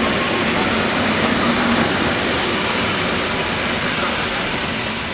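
EN57-series electric multiple unit running past close by on the platform track, a steady loud rumble of wheels and running gear with a faint hum in the first couple of seconds, easing slightly near the end.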